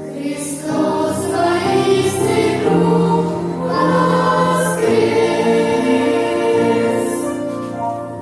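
Children's choir singing an Easter song in sustained chords, the phrase dying away near the end.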